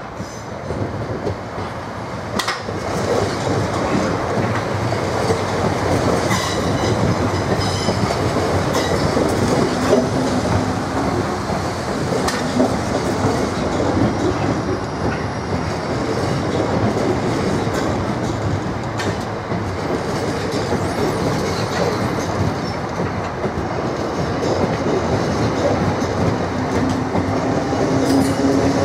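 Two coupled Class 442 electric multiple units passing at close range, their wheels clattering over points and rail joints. The sound grows louder over the first few seconds as the train nears, and a rising whine comes in near the end.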